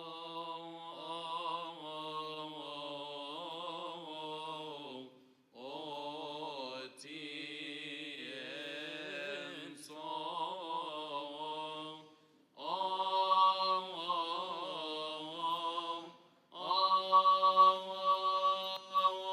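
A solo male voice chants the Psalm in the Coptic liturgy, a melismatic, ornamented melody sung in four long phrases with short breaks for breath between them.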